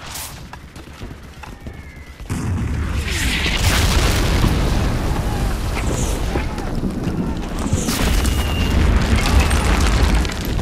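Battle explosions: a sudden deep blast about two seconds in, then continuous heavy rumbling with further loud blasts.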